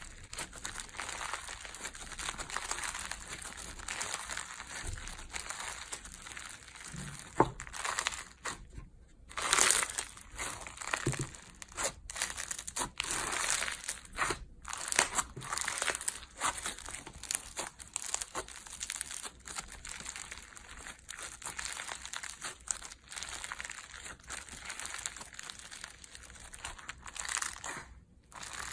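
Pink foam-bead slime (crunchy floam) being stretched, squeezed and pressed by hands, the beads crackling and popping continuously. The sound breaks off briefly about nine seconds in and again near the end.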